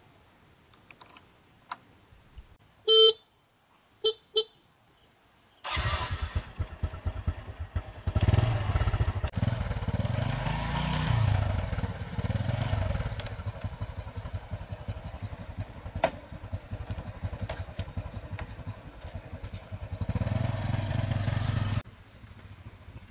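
A couple of short beeps, then a small engine starts about six seconds in and runs steadily, dropping in level near the end.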